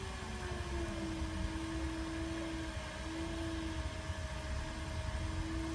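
Electric pottery wheel motor running with a steady whirring hum as the wheel spins a porcelain platter under the potter's hands. The hum dips slightly in pitch during the first second, then holds, over a low rumble.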